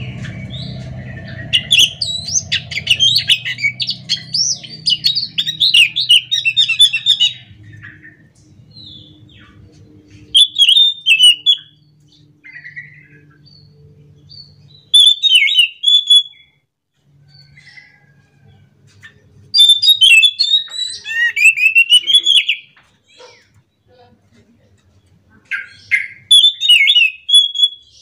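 Anis macan thrush singing a loud, fast, twittering song. First comes a long rolling run of about six seconds, then four shorter phrases with pauses between them.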